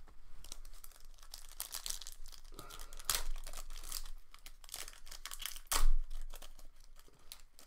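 Football trading-card pack wrappers crinkling and tearing as packs are ripped open and handled. Irregular crackles throughout, with one louder crackle about six seconds in.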